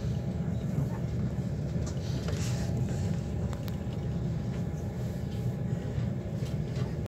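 ICE 4 high-speed train running, heard from inside a passenger carriage: a steady low rumble from the wheels and running gear, with faint steady tones above it. A few light clicks, and a brief rush of hiss about two and a half seconds in.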